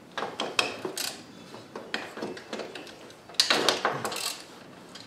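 Socket ratchet clicking in short, irregular runs as the nut on the alternator's positive terminal is worked loose, with a louder cluster of clicks and rattles about three and a half seconds in.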